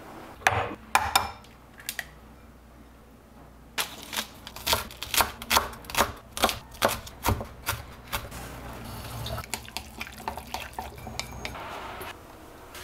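Knife chopping fresh chives on a wooden cutting board: a run of quick, even strikes, about three or four a second, starting a few seconds in and thinning out to fewer, softer ones later.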